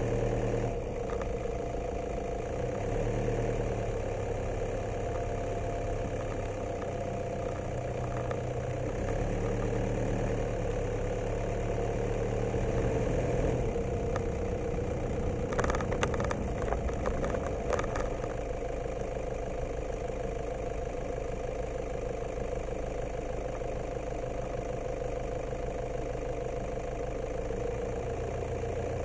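A motor running steadily with a constant, unchanging hum, and a few brief clicks and rattles about fifteen to eighteen seconds in.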